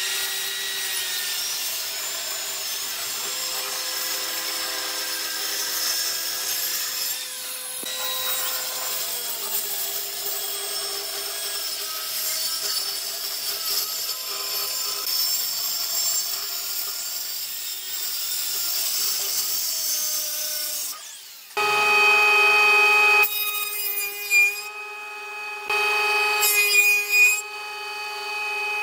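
Handheld circular saw cutting through a pine panel, a steady high blade noise in the wood for about twenty seconds. It then gives way abruptly to a large stationary woodworking machine running with a steady hum, which gets louder in two bursts as a board is fed through.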